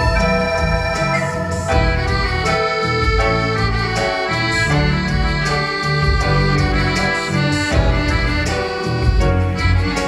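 Live instrumental music from a small ensemble: accordion, electronic keyboard and electric guitar playing together over a steady bass line and beat.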